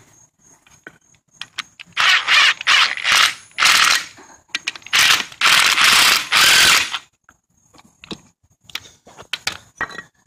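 Cordless impact driver run in five short bursts, between about two and seven seconds in, with the last the longest. It is driving the bolts that draw a new lower ball joint into the steering knuckle. Light clicks and knocks from the parts being handled come before and after.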